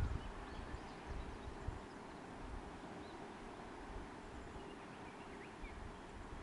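Outdoor ambience: irregular low thumps of footsteps and wind rumbling on the microphone, with faint bird chirps now and then.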